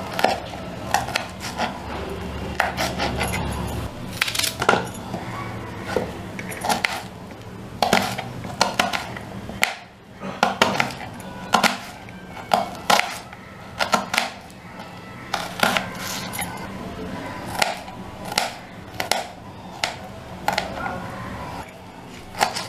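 Kitchen knife chopping green chillies and onion on a plastic cutting board. Irregular sharp taps come about one or two a second as the blade hits the board.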